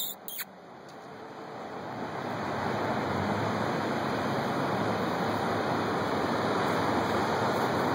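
A steady rushing outdoor noise that swells over the first few seconds and then holds, with two short clicks at the very start.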